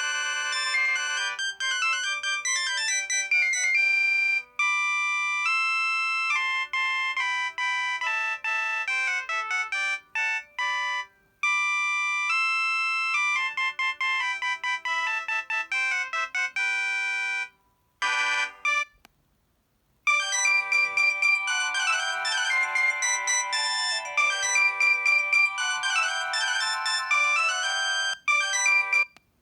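Preloaded ringtones of a Mobiwire Aponi mobile phone playing one after another: electronic melodies made of quick tones. The tune breaks off a little past halfway and a new melody starts after a short pause.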